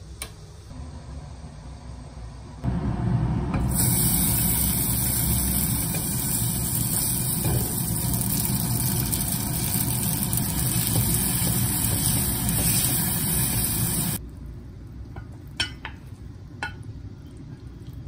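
Steady sizzling of spaghetti and cream mushroom sauce cooking in a hot pan on a gas burner. It comes in loudly a few seconds in over a quieter hiss and cuts off suddenly about fourteen seconds in, followed by a few light clicks.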